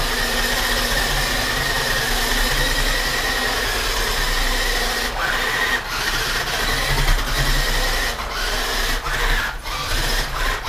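The electric drive motor and gearbox of a 1983 Radio Shack off-road RC buggy, running in low gear on a 2-cell LiPo: a steady high-pitched mechanical whine. Several times in the second half it cuts out briefly and climbs back in pitch as the throttle is let off and reapplied.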